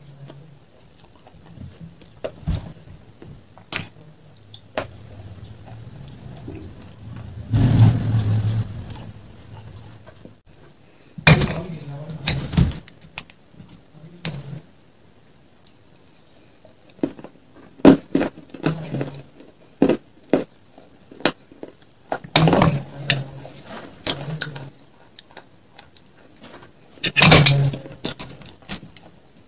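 Close-miked eating sounds: a metal spoon clinking and scraping against a glass of crumbly layered dessert, with louder bursts of chewing between bites.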